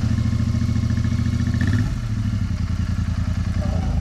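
A vehicle engine running steadily with a pulsing low note that shifts slightly about two seconds in.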